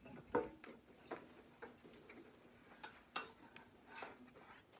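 Faint, irregular clicks and taps, about one every half second, from a metal TV wall-mount bracket being picked up, carried and set against the wall.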